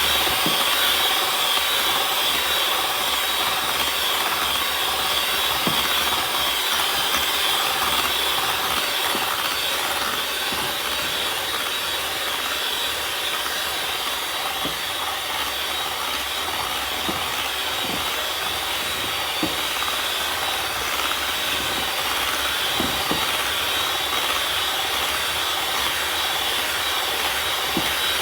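Electric mixer running steadily, beating cake batter, with a few faint light knocks.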